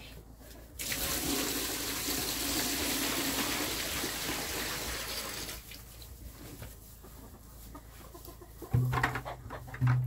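Water being poured from a bucket into a plastic stock tub, a steady splashing rush for about five seconds. Near the end come two hollow knocks, about a second apart.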